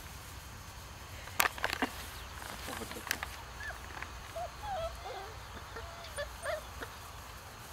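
Puppies whimpering: a run of short, faint, squeaky whines through the second half, after a few sharp clicks in the first half.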